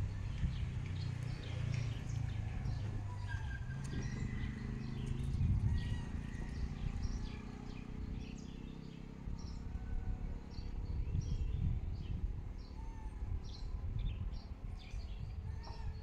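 Small birds chirping and calling over and over, over a low steady rumble.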